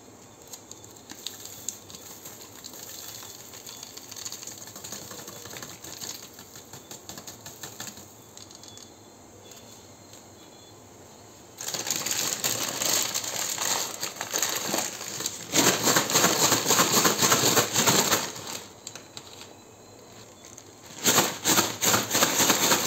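Paper bag of fries being handled as piri piri spice mix is tipped in from a sachet, with soft rustles and small taps. About halfway through, the bag is folded shut and shaken hard: loud, rapid paper crinkling in two bouts, the second starting near the end.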